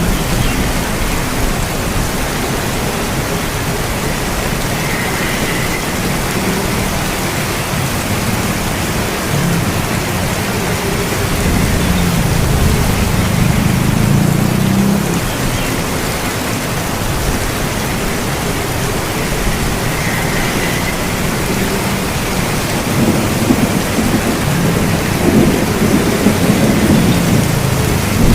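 Steady rain falling, with low rolling thunder that swells and fades several times.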